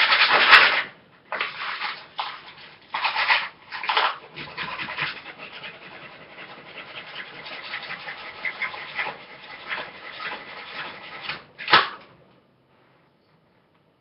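Sandpaper rubbed by hand on the sawn-off end of a Crosman Pumpmaster BB gun: a few separate scrubbing strokes, then a long stretch of steady scratchy rubbing, ending in one short louder scrape about twelve seconds in.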